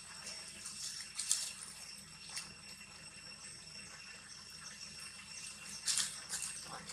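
Macaques shifting on dry leaf litter: a few short rustles and crackles, the loudest about a second in and near six seconds, over a faint steady high-pitched background whine.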